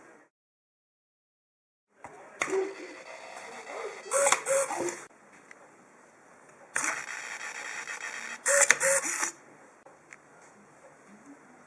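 A useless machine cycling twice, after about two seconds of silence. Each cycle opens with a sharp click of its toggle switch, followed by the whirring of its small hobby servos as the arm swings out and flicks the switch back off, ending in two short loud servo buzzes.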